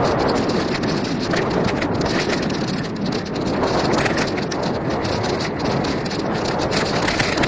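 Wind buffeting the camera microphone while a mountain bike rolls along a dirt singletrack, tyres crunching over the ground and the bike rattling with many small knocks over bumps.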